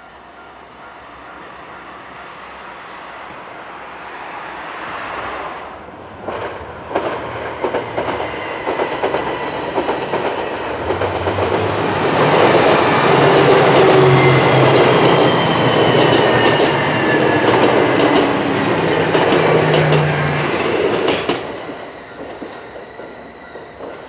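A JR West KiHa 189 series diesel limited express approaching and passing a level crossing. A rumble grows, then comes the clickety-clack of wheels over rail joints with the low hum of the diesel engines and a falling whine, loudest in the middle, dying away near the end. A level-crossing warning bell rings beneath at the start.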